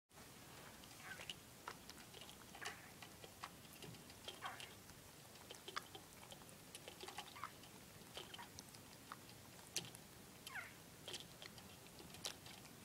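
Holland lop rabbit pulling hay from a hay rack and chewing it: faint, irregular crisp crunches and clicks a few times a second.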